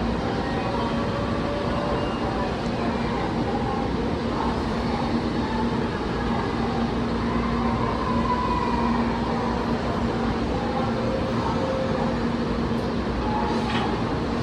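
Tokaido Shinkansen N700A train pulling out of a station: a steady rumble with a low, even hum, faint voices behind it.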